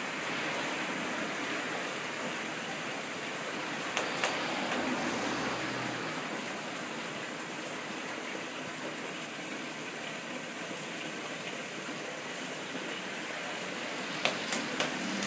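Steady rushing background noise, with a few short sharp clicks about four seconds in and twice more near the end.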